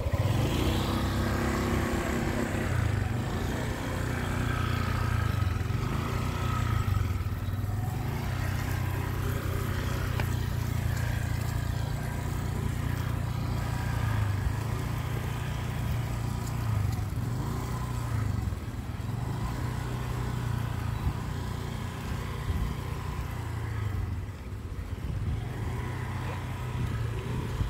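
Small motorcycle engine running steadily while riding over a rough dirt road, a low, even drone that wavers only slightly.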